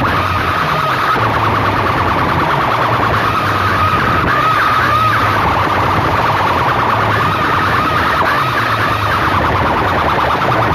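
Massed banks of aluminium horn loudspeakers on a sound-system competition rig, played at full volume: a loud warbling siren-like tone over a pulsing bass beat.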